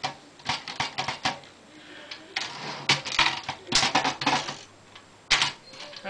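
1968 Commodore 2200 portable manual typewriter being worked with its cover off: a quick run of sharp type-bar clacks, then longer rattling mechanical noises, and one loud single clack about five seconds in.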